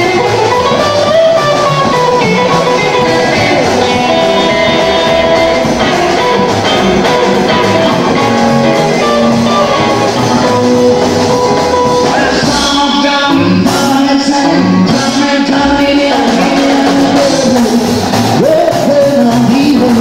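Live rock and roll band playing loud, with electric guitar prominent.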